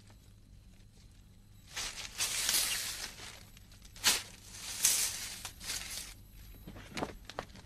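A straw broom sweeping the ground: a few separate swishing strokes, the longest about two seconds in, then shorter and fainter ones.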